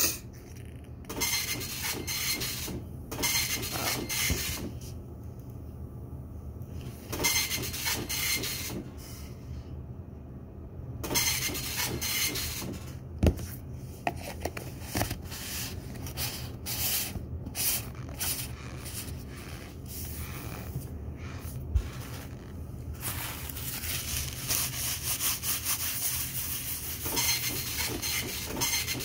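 Irregular rubbing and scraping from close handling of a plastic cornstarch tub and from eating the dry cornstarch, with a couple of sharp clicks and a steady low hum underneath.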